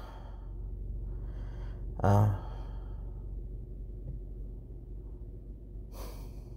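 A man's deep sigh: a breath drawn in, then a short voiced exhale about two seconds in. A fainter breath comes near the end, over a steady low hum.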